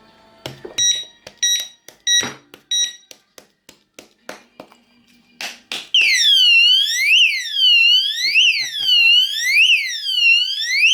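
Oxford Screamer alarmed motorbike disc lock: a few short high beeps, some handling clicks, then its armed alarm goes off about halfway through as a loud siren sweeping up and down about once a second.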